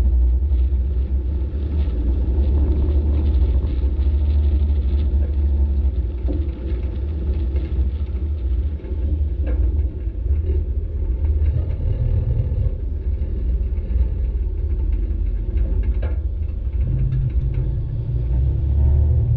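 Flatbed tow truck driving, heard from the back of its bed: a steady low rumble of engine and road noise with a few small knocks. The low drone steps up in pitch about two thirds of the way in and again near the end.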